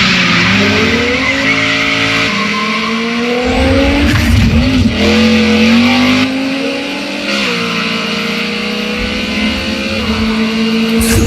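Racing car engines at full throttle, the pitch climbing and dropping back with each gear change, over a steady hiss of tyre and wind noise. A sharp crack near the end.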